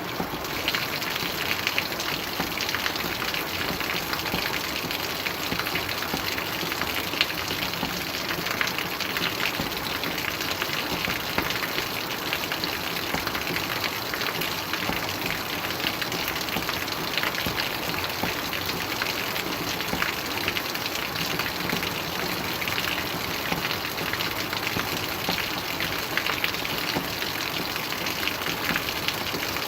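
Steady rain falling, an even hiss dense with fine patters of drops.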